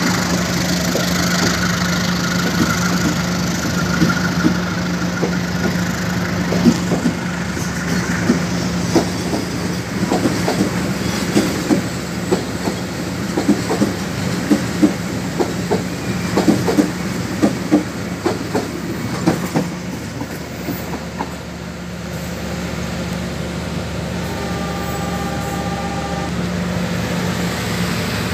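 Two local passenger trains passing each other on adjacent tracks: a steady low drone under the carriage wheels clacking over rail joints, with the clacks coming fast and uneven through the middle, then the drone easing and the clacks dying away near the end.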